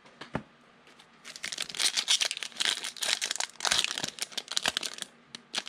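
Foil wrapper of a football trading card pack crinkling and tearing as it is opened, a dense run of crackles starting about a second in and dying down near the end.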